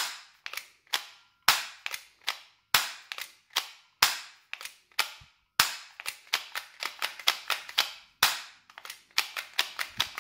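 Manual-cocking, magazine-fed Glock-style gel blaster being cocked and fired over and over: a sharp plastic snap every second or so, with smaller clicks of the slide in between that come faster in the second half. The magazine is not feeding, so the blaster is firing empty with no gel ball in the chamber.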